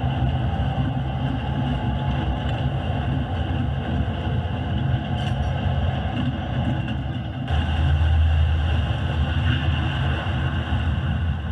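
HO scale model freight train rolling past on the track: a steady running noise of the hopper cars' wheels on the rails. It grows louder, with a stronger low hum, about seven and a half seconds in as the model diesel locomotives come by.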